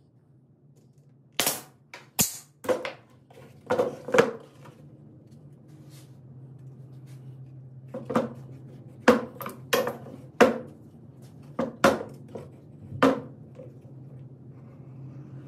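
A dozen or so sharp, irregular knocks and clanks, as of tools or hard parts being handled and struck, in two clusters, over a steady low hum.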